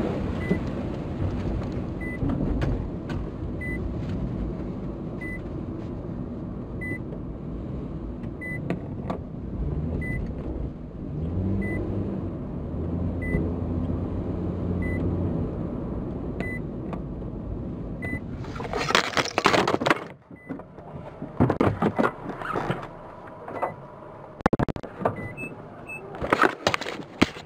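A steady low rumble with a faint high beep about every second and a half. From about two-thirds of the way in, loud irregular rustling and bumps of the camera being handled.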